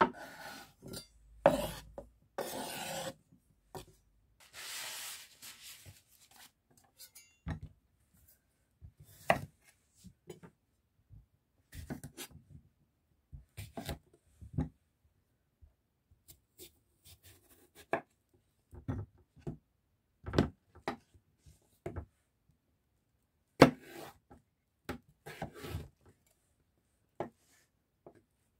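Scraping and rubbing on a bamboo cutting board for the first six seconds, as the halved cherry tomatoes are moved off it. Then a kitchen knife cuts through a cucumber, each stroke ending in a sharp knock on the wooden board, a second or two apart.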